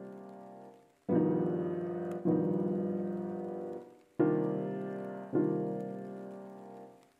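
Background music: slow piano chords, each struck and left to ring and fade.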